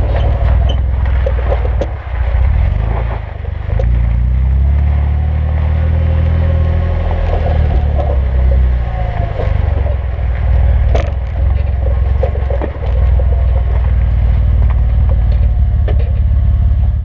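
2008 Jeep Wrangler JK's 3.8-litre V6 running through a Flowmaster 40 Series muffler while driving, a deep exhaust rumble with road and wind noise, heard from under the rear axle. The note climbs and eases with throttle a few times, and scattered sharp ticks come through, the loudest about eleven seconds in.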